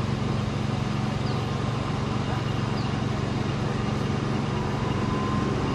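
Jet airliner engines running with a steady low hum and rushing noise, a faint thin whine appearing about three and a half seconds in.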